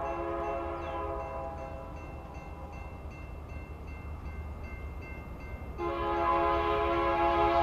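Air horn of an approaching BNSF freight led by GE C44-9W 4880, sounding for a grade crossing. One blast cuts off about a second in, and a second, louder blast starts near the end. A low diesel rumble runs underneath.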